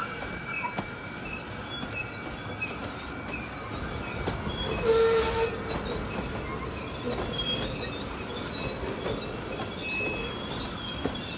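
G-scale model freight cars rolling by on track, their wheels running on the rails with light clicking and short flange squeals, and one louder squeal lasting under a second about five seconds in.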